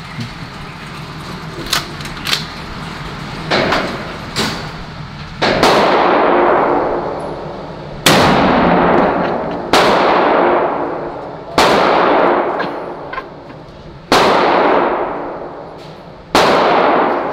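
Shotgun blasts in an indoor shooting range, a Stevens pump-action shotgun among them. A few fainter bangs come in the first few seconds. Then six loud shots follow from about five seconds in, one every two seconds or so, each ringing off the range walls for a second or more.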